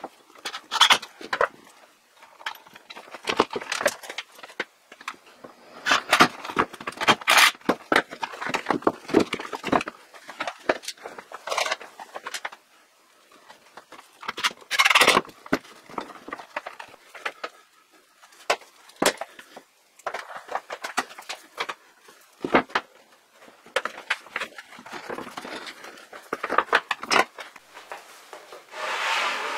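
Hands working with a mains cable, loose wires and a small plastic electrical box on a wooden panel: irregular clicks, taps and rustles, with a longer rustle near the end.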